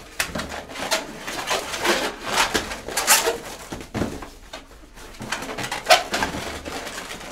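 Long latex modelling balloon squeaking and rubbing as it is twisted by hand into a balloon dog, in irregular squeaks with a short lull about four seconds in.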